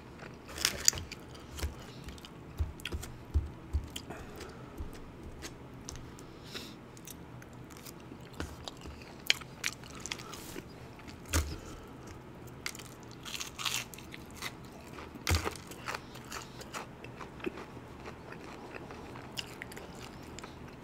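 A person chewing and crunching food close to the microphone, with many short, sharp mouth clicks and crunches scattered throughout.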